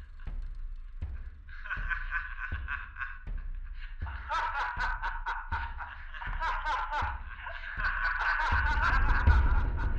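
A man laughing, building from a snicker into loud, rapid laughter from about four seconds in. Under it a low thump repeats roughly every three quarters of a second, and a deep low sound swells in near the end.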